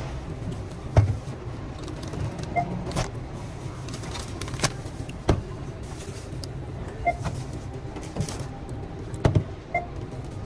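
Groceries being set down on a supermarket checkout counter and conveyor belt, scattered knocks and clacks over a steady low hum. Short checkout scanner beeps sound several times.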